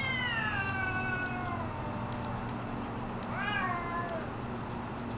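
Domestic cats yowling in a territorial standoff: a long drawn-out yowl falling in pitch and fading out about two seconds in, then a shorter yowl that rises and falls about three seconds in.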